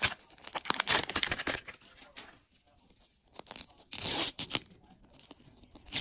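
Thin printed plastic wrapper being torn along its perforation and peeled off a Miniverse capsule ball. It makes crackly tearing in bursts: one about a second and a half long, another about four seconds in, and a short sharp rip at the end.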